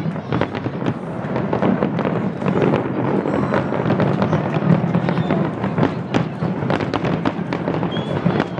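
Fireworks display going off in a rapid, continuous barrage of many overlapping bangs and crackles.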